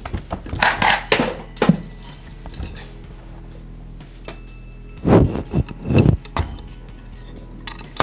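Knocks and light clinks of small parts and a plywood board being handled on a wooden tabletop, in two short clusters, one about a second in and one about five seconds in.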